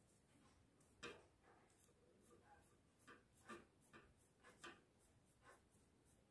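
Faint scratching of an oil pastel stick on paper in short, irregular strokes, about ten of them, the loudest about a second in.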